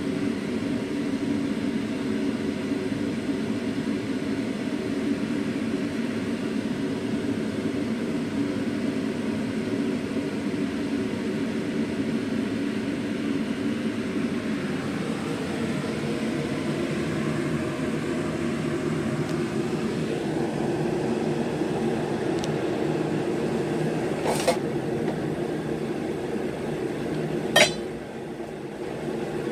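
A kitchen appliance motor running with a steady hum. Near the end come two sharp metallic clinks, and just after the second the hum drops in level.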